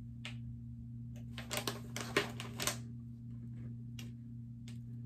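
Scissors snipping open a paper packaging pouch: a series of short crisp cuts and rustles, most bunched between about one and three seconds in, with a low steady hum underneath.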